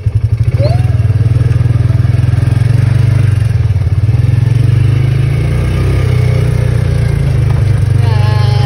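Side-by-side UTV engine running steadily as the vehicle drives over grass, heard from inside the cab as a loud, low drone.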